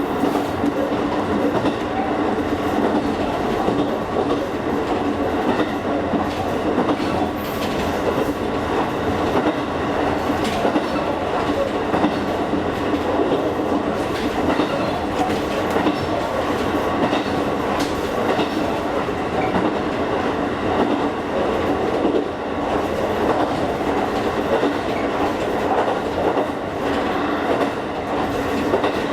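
Electric train of the Kakogawa Line running at speed, heard from inside the carriage: steady running noise with a constant hum and scattered clicks of the wheels over the track.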